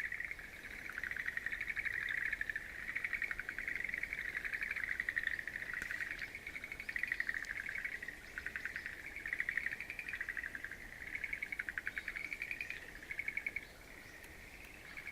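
Chorus of frogs calling: many overlapping rapid, pulsed trills that run on continuously and ease off a little near the end.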